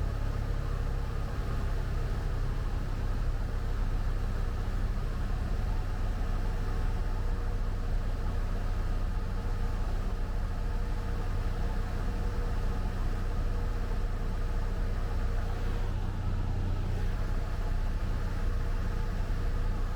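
Cessna 172 Skyhawk's piston engine and propeller droning steadily, heard inside the cabin, at slightly reduced throttle during a gradual descent.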